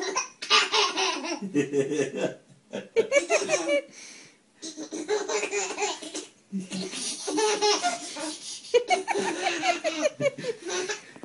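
A baby laughing hard, in a string of belly-laugh bouts with short pauses between them, tickled by a cat licking its toes.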